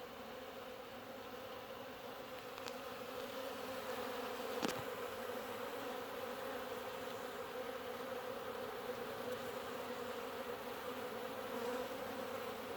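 Swarm of honey bees buzzing in a steady drone as they fly around a hive box entrance, as if on an orientation flight. A single sharp click about four and a half seconds in.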